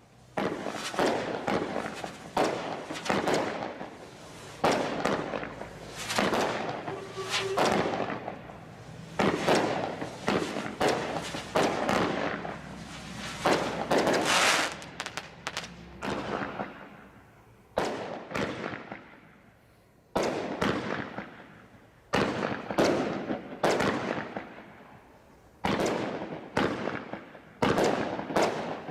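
Firework barrage cakes from a Bright Star Desert Storm Crate pack firing shot after shot, roughly one or two sharp bangs a second, each trailing off, with a couple of brief lulls along the way.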